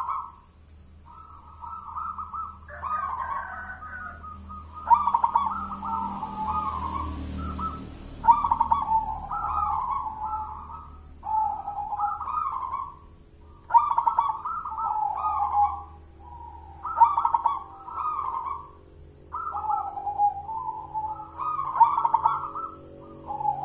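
Zebra dove (perkutut) cooing: repeated phrases of quick, choppy notes, each phrase one to two seconds long and coming every two to three seconds.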